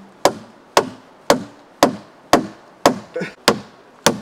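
A hammer driving nails into a wooden brace: a steady run of sharp blows, about two a second, each with a short ring.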